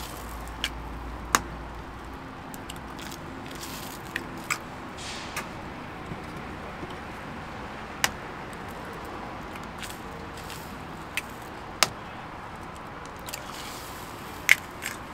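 Scattered sharp metallic clicks and taps, about ten in all, the loudest near the start and near the end, from work at a gyeran-ppang (Korean egg bread) baking stall, over steady background noise.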